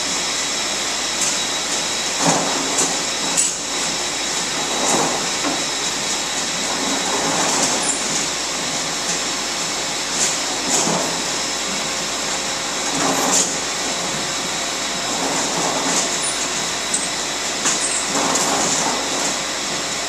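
Steady hum of winery machinery running, with a rake scraping white grape clusters out of a plastic crate so they drop into a stainless steel hopper every couple of seconds.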